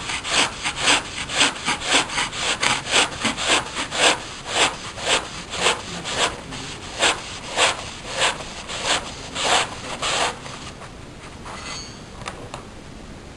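A sharp knife sawing back and forth through a roll of kitchen paper on a chopping board, about two strokes a second. The strokes stop about ten seconds in.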